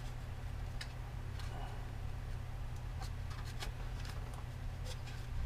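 Light handling sounds of a plastic model truck cab being turned and pressed while blue masking tape is smoothed along it: a few scattered soft clicks and taps, over a steady low hum.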